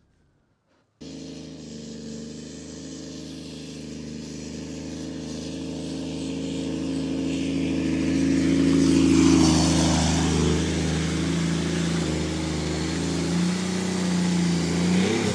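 BMW E39 530d's M57 three-litre straight-six turbodiesel running, starting about a second in and growing steadily louder as the car nears. A hiss swells through the middle, and the engine note rises in pitch near the end.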